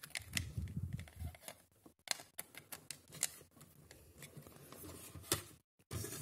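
Small plastic clicks and knocks as a Raspberry Pi's black plastic case is handled and set down beside a router, its plugged-in cables shifting, with low rubbing from the hands early on.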